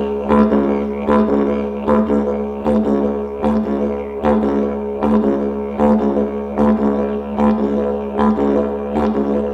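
Didgeridoo drone played in a double rhythm: a steady low tone with a repeating pattern of accented pulses, the strongest coming about every three-quarters of a second.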